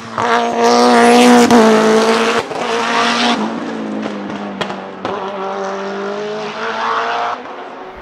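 Tuned Mitsubishi Lancer Evolution's turbocharged 4G63 inline-four engine at full throttle, revving hard and changing pitch as it accelerates through corners, loudest in the first three seconds. Sharp cracks about a second and a half in and again about halfway through.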